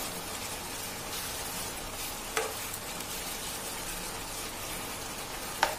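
Pasta and sausage in sauce sizzling in a nonstick wok as it is stir-fried with a spatula: a steady sizzle, with the spatula knocking against the pan twice, about two and a half seconds in and near the end.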